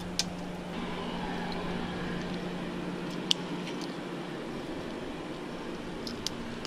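A few sharp metallic clicks of pliers working a lure's treble hooks free, the loudest about three seconds in and two close together near the end, over a steady low hum.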